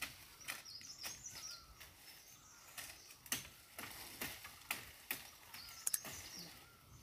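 Irregular sharp knocks and cracks, about one every half second, of wood being hacked and a long sapling being pulled on by hand. Birds chirp faintly over them.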